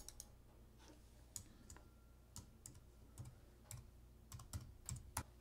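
Faint, irregular key clicks of typing on a computer keyboard.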